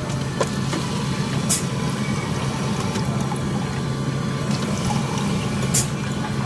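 Self-serve soda fountain dispensing a drink into a paper cup, a steady pour over the machine's constant hum, with two short hisses, one about a second and a half in and one near the end.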